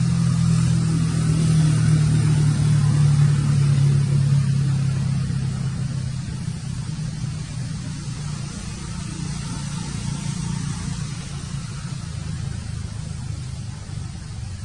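A low, steady engine hum, like a motor vehicle running nearby, loudest in the first few seconds and then slowly fading.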